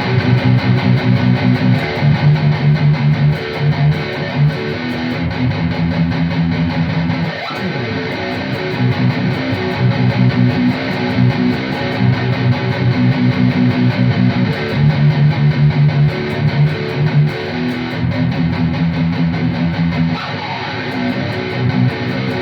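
Electric guitar, tuned down from E standard to B by a Digitech drop pedal, playing driven rhythm riffs through a drive pedal: chugging low chords in stop-start blocks, with a short break about seven seconds in. The drop pedal still tracks cleanly this low.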